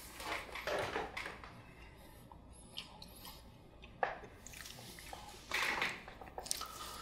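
Soft rustling and handling noises in a few short bursts, a knit beanie being taken and pulled on over the head and adjusted.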